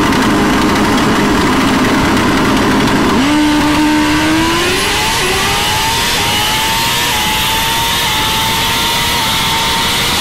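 Turbocharged Suzuki GSX-R1000 drag bike holding steady revs at the start line, then launching about three seconds in and pulling away. Its engine note climbs in steps with a short dip at each upshift as it shifts through the gears.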